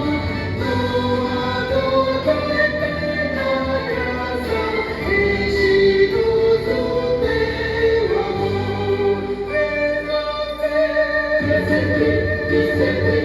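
A vocal ensemble singing a gospel hymn in close harmony over a musical accompaniment, with held, layered notes.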